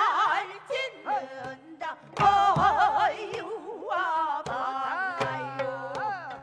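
Gayageum byeongchang: a woman sings in pansori style with wide, wavering vibrato while plucking the gayageum, with hourglass-drum (janggu) strokes underneath.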